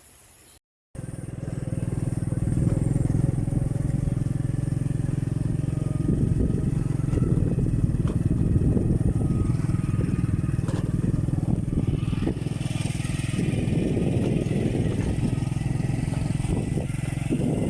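Motorcycle engine running steadily, with a rattly low drone; it starts abruptly about a second in.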